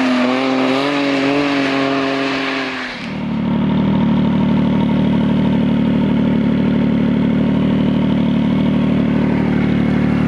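Snowmobile engine running at speed, its pitch dipping and then holding steady. About three seconds in it gives way to a Yamaha snowmobile's engine idling steadily close by.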